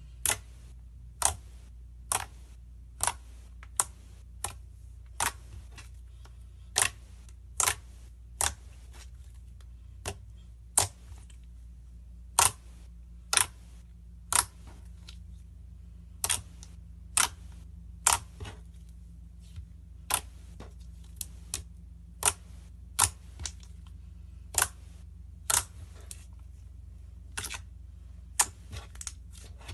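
Slime being worked by hand, giving sharp pops and clicks irregularly about once a second, over a low steady hum.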